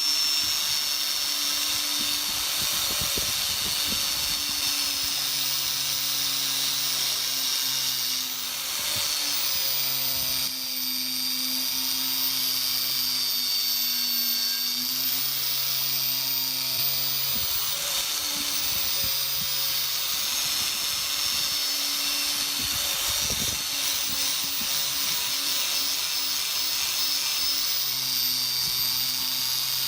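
High-speed rotary tool working on metal rust and finish: a steady high whine that sags and recovers in pitch as it is pressed into the part, with a lower hum that comes and goes in stretches of a few seconds.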